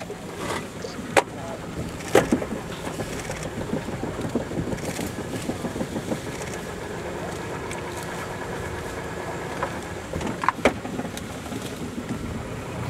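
Small boat motor idling steadily, with a few sharp snaps about a second and two seconds in and a quick pair near the end.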